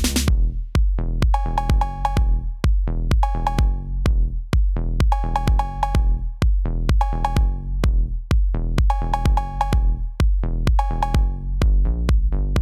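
Electronic background music with a drum-machine beat, about two hits a second over a steady bass, and a short melodic phrase repeating about every two seconds.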